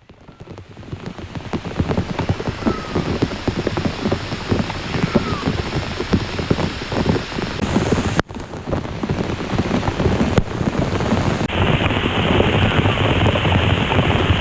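Heavy rain pouring down, dense and steady, with hard drops striking close by.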